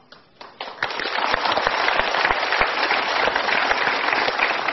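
Studio audience applauding: many hands clapping together, building up within the first second and then holding steady.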